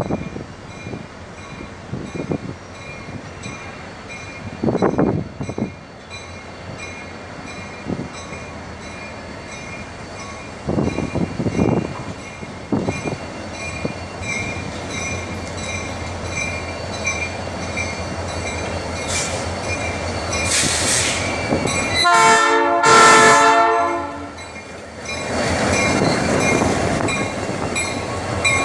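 Diesel locomotive FCCA 702 approaching slowly with a train of tank cars: a steady engine drone with a high whine, a brief high squeal about two-thirds in, then a horn blast of about two seconds. Near the end the engine grows louder as the locomotive passes close.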